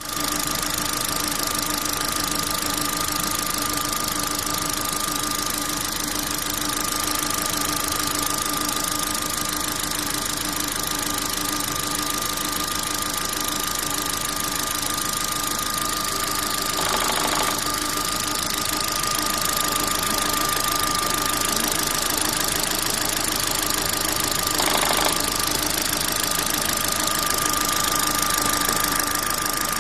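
Opel Zafira B engine running steadily, with a constant high whine over it. Twice in the second half there is a brief burst of noise.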